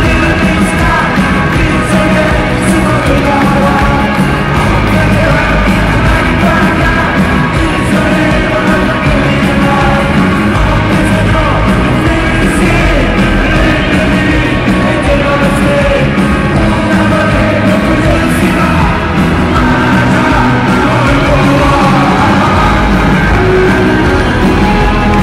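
Live rock band playing loudly through a stadium PA, with a lead singer, heard from within the crowd; audience voices yell along.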